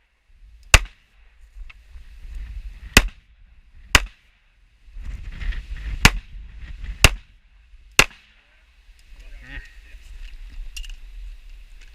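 Six 9mm pistol shots fired one at a time at uneven intervals, from about a second in until about eight seconds in, with rough movement noise between them.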